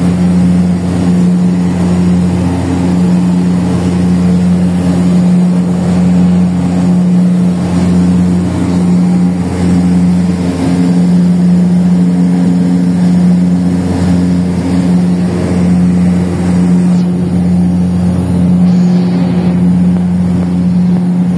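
Propeller aircraft's engines droning steadily at a constant pitch during a cloud-seeding flight.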